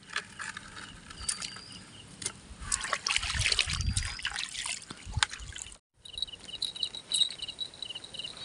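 Water sloshing and trickling with scattered clicks and knocks, loudest about three to four seconds in. After a sudden break, insects chirp in short repeated trills.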